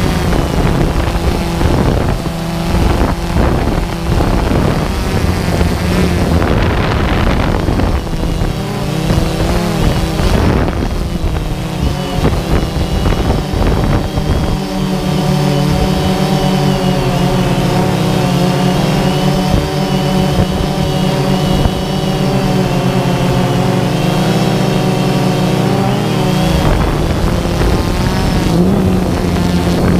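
Quadcopter drone's motors and propellers humming. The pitch wavers and shifts during the first half, then holds steady from about halfway to near the end.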